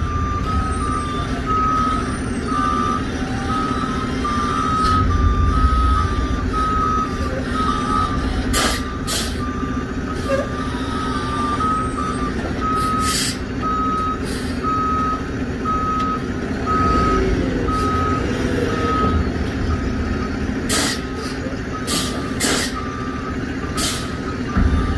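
Semi-truck backing a trailer, its reversing alarm beeping steadily at about two beeps a second over the diesel engine running. Several short hisses of air brakes break in.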